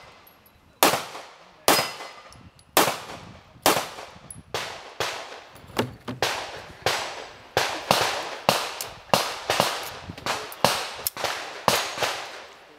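Handgun shots from a practical-shooting course of fire, more than twenty in all, each followed by a short echo. The first few come about a second apart, then faster pairs and strings follow from about four seconds in.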